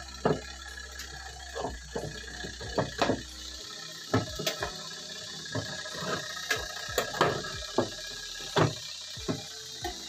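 Water sloshing and splashing in the wash tub of a Micromatic washing machine as it agitates on a test run of its new switch, irregular splashes over a steady hiss. A low hum underneath stops about three and a half seconds in.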